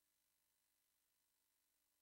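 Near silence: only a faint steady hiss on a soundless film transfer.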